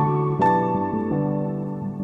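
Background music: slow, soft keyboard notes over held chords.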